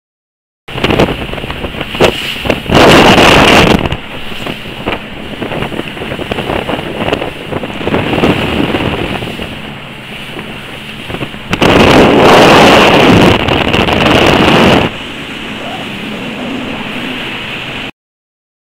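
A rigid inflatable boat running at speed on open sea: wind buffeting the microphone over rushing water and spray. There are two long loud gusts, about three seconds in and about twelve seconds in. The sound cuts off abruptly near the end.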